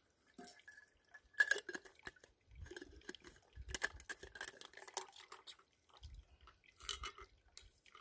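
Scattered light clinks, taps and rustles of camp cooking gear being handled around a stainless steel pot, with a few dull low thumps.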